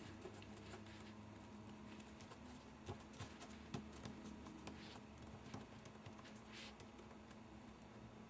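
Very faint rustling and a few light taps of paper: fingers pressing and smoothing a cut cardstock-and-vellum flower onto a card, over a low steady room hum.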